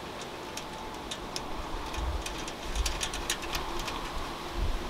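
Irregular light metallic clicks and ticks as a bolt with washers is turned by hand into a nut held behind a steel accessory plate. The clicks come thickest around the middle, with a few soft low thumps from handling.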